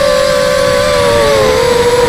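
QAV250 quadcopter's brushless motors whining steadily in flight, heard through the onboard camera, the pitch dipping a little near the end as the throttle eases.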